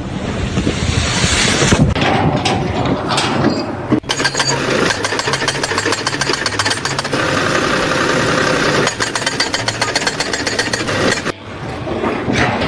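Rapid, steady mechanical hammering, like a jackhammer or similar impact machine, starts abruptly about four seconds in and cuts off shortly before the end. Engine noise comes before it.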